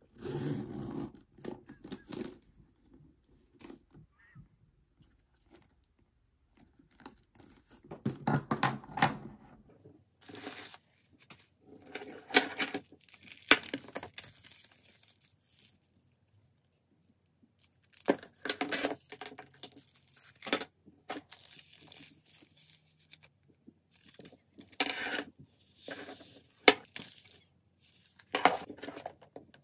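Bursts of rustling and scraping handling noise, with a few sharp knocks, as a leather crossbody bag and its detachable leather and webbing straps are picked up, moved and laid on a table; there are short quiet gaps between the bursts.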